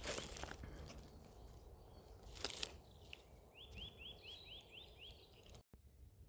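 A small songbird calling a quick run of about six rising chirps, about three and a half seconds in, over a few sharp crunching knocks near the start and again about two and a half seconds in.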